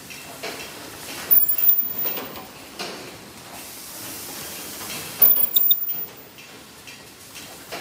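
Nandun LR-AT600 clear book (display book) automatic production line running: steady mechanical noise, with two louder short bursts of noise about four seconds apart as the machine cycles.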